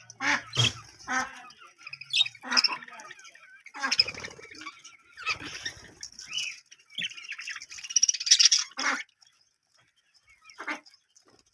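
Budgerigars chattering and squawking: a rapid string of harsh, scratchy calls over a steady warble, then just a couple of faint calls for the last two seconds or so.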